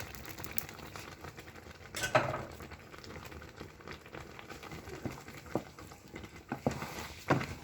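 Pot of okra and tomato stew cooking and bubbling quietly, with a few knocks of a utensil against the pot, the loudest about two seconds in.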